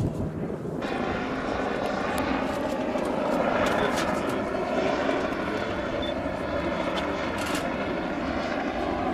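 A Bell 206-type light turbine helicopter flying by, its engine and rotor giving a steady noise. For less than a second at the start, the lower drone of a twin-engine propeller plane is heard before it cuts off.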